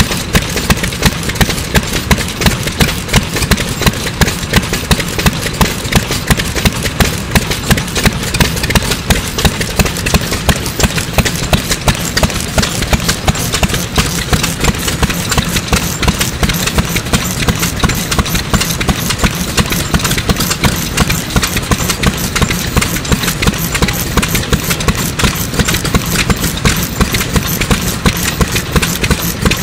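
A STRONG Type A 2.5 hp single-cylinder stationary engine, made by Iwashita Iron Works around 1949, running steadily with an even, regular beat of firing strokes.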